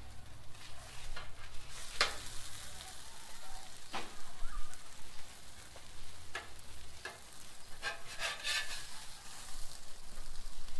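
Folded tortilla tacos sizzling faintly on a Blackstone flat-top griddle, while a metal spatula scrapes and clicks against the steel cooktop several times as it slides under the tacos to lift them off.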